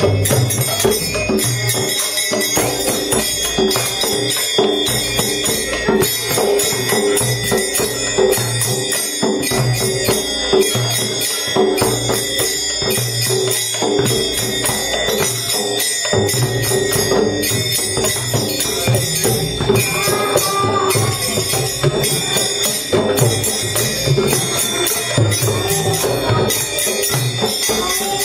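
Kirtan: small hand cymbals (kartals) clashing in a steady rhythm over mridanga and dholak drumming, with a boy's voice singing the chant through a microphone.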